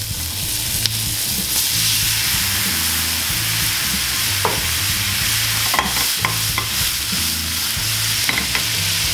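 Prawns frying in hot oil in a frying pan, sizzling hard as wine is poured in to deglaze and the pan flares up in flames; the hiss builds about a second in and stays up. A few light knocks of the pan are heard.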